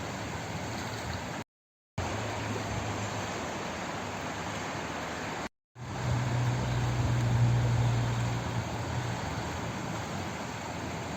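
Flowing water running as a steady, even rush, cutting out to silence twice for a moment. A low hum swells up under it for a few seconds after the second gap.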